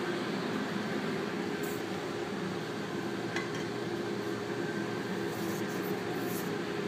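Steady hum and hiss of kitchen ventilation, with a few faint light clinks of glass or dishes, one about halfway through.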